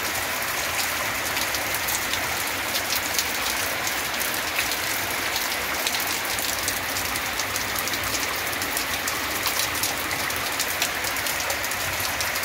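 Heavy rain falling steadily, with many separate drop hits close by.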